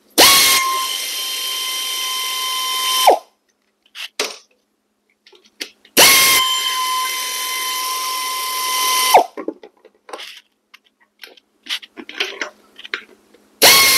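Pneumatic air ratchet running in two bursts of about three seconds each, a steady high whine, spinning out the oil pan bolts; a third burst starts near the end. Light clicks and clinks between the runs.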